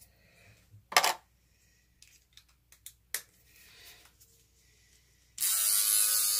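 A sharp knock about a second in and a fainter click later, then, about five and a half seconds in, an electric beard trimmer switches on and buzzes steadily as it is raised to trim the moustache above the upper lip.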